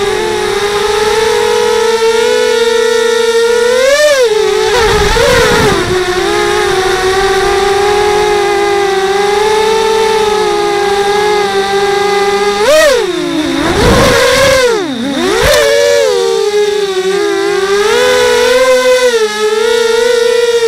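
QAV250 racing quadcopter's brushless motors and propellers whining steadily, as picked up by its onboard camera. The pitch swoops up and down with sharp throttle changes about four seconds in and again between about twelve and fifteen seconds, each followed by a gust of wind rush.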